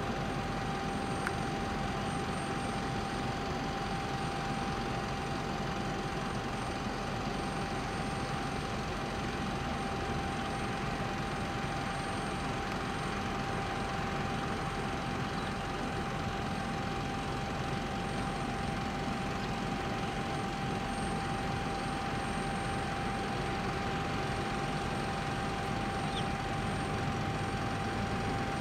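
Steady running noise of airport machinery around a parked jet airliner: a constant rumble and hiss with one unchanging mid-pitched whine.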